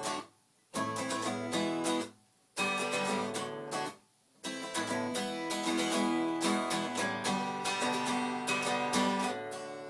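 Acoustic guitar strummed in chords, stopping dead three times for about half a second in the first few seconds, then playing on without a break.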